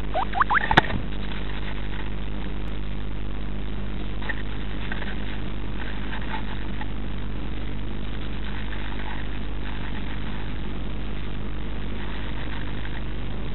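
Steady electrical hum from the nest-box camera's audio line. In the first second a Eurasian blue tit flutters and scratches in the moss nest, and faint rustles of nest material follow now and then.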